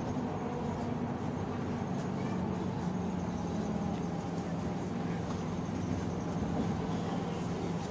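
Running noise of a moving public-transport vehicle heard from inside: a steady low drone whose pitch shifts slightly about three seconds in.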